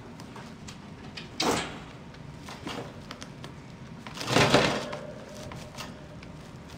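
A rabbit tugging at a woven seagrass hay rack hooked onto his wire cage, rattling the cage twice: a short clatter early on and a louder, longer rattle about four seconds in that leaves the wire ringing briefly. Light clicks and rustles of hay and chewing come between.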